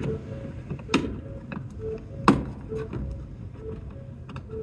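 Plastic tailgate trim panel of a Ford Focus being handled and pressed into place: a few sharp plastic clicks and knocks, the loudest about a second in and again a little over two seconds in, with smaller ticks between.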